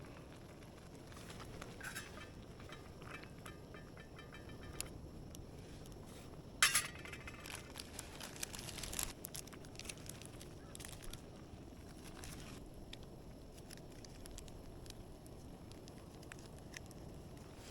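Scattered light clinks, taps and rustles of camp cooking gear and food packaging being handled, with one sharp click about six and a half seconds in and a short run of clicks a couple of seconds later.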